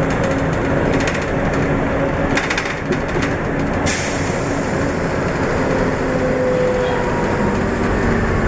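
Huanghai DD6181S03 city bus heard from inside while driving: a steady drone of engine, drivetrain and road noise with a hum that shifts in pitch. A hiss comes in suddenly about four seconds in and stays.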